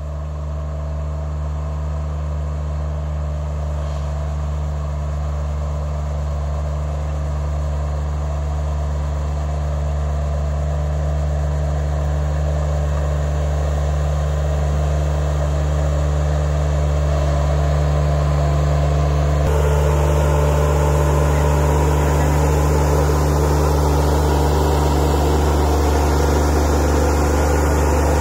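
Engine of a Shaktiman Protector 600 self-propelled boom sprayer running steadily as it drives along the crop rows spraying, growing louder as it comes closer.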